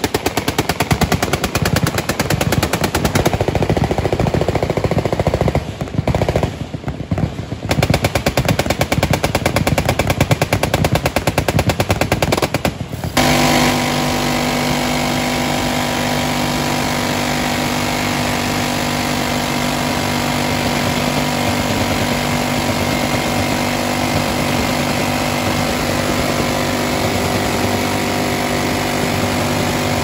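Rapid machine-gun fire from the firing line, several guns shooting at once, thinning briefly about six seconds in. About thirteen seconds in, a minigun takes over with one continuous, even buzz of fire.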